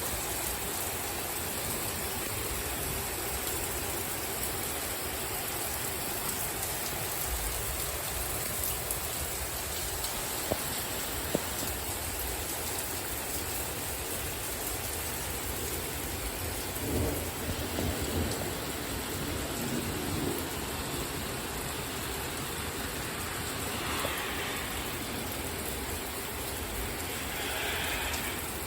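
Steady rain falling during a thunderstorm, an even hiss throughout. Two sharp clicks come about ten and eleven seconds in.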